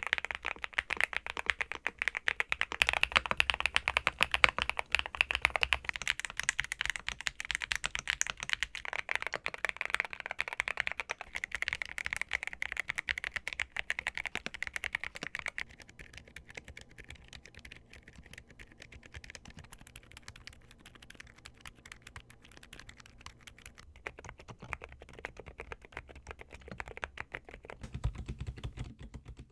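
Continuous fast typing on a mechanical keyboard fitted with Gamakay Phoenix silent linear switches. The key strokes are louder for the first half, drop to a softer level about halfway through, and grow louder again a few seconds before the end.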